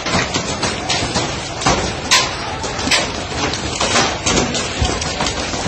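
Loud street commotion: a dense crowd noise with frequent sharp knocks and bangs, a few of them standing out about two and three seconds in.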